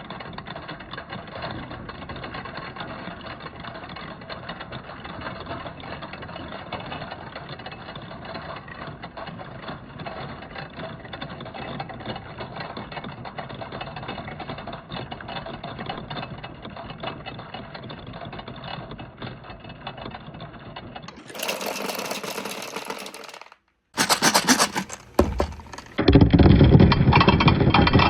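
Many marbles rolling and clattering down a wooden marble run track, a steady dense rattle of small ticks. About 21 seconds in the sound changes abruptly, with a short gap, and then turns to a much louder clatter of balls.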